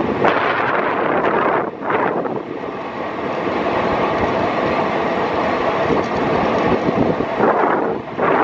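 Shiploader running: phosphate pouring down a cascade loading chute and conveyor into a ship's hold at about 800 tons per hour. It makes a steady, dense rushing rumble that dips briefly twice, about two seconds in and near the end.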